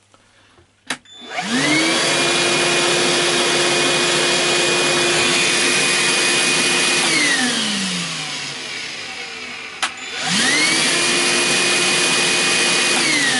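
DeWalt DCV582 cordless wet and dry vacuum running on battery power, switched on and off twice: each time a click of the switch, then the motor spins up to a steady whine, holds for a few seconds, and falls away in pitch as it winds down.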